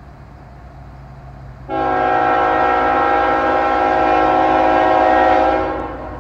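CSX diesel locomotive's multi-note air horn sounding one long blast of about four seconds for the grade crossing. It starts sharply under two seconds in and fades near the end, over a low rumble.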